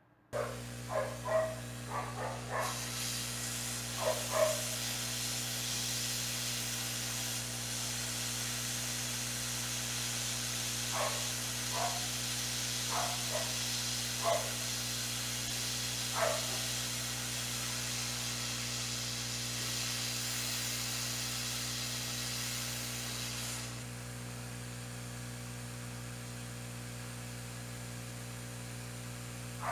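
Hot-air rework station blowing on the solder joints of a laptop's DC power jack to desolder it. Its air makes a steady hiss that starts a couple of seconds in and stops a few seconds before the end, over the station's constant hum. A dog barks in short sharp yelps, in two clusters.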